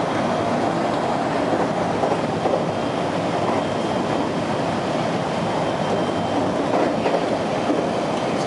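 Steady running noise of an electric train at speed, heard from inside the car: wheels on the rails and the rumble of the running gear. A faint high whine rises over it for a few seconds in the middle.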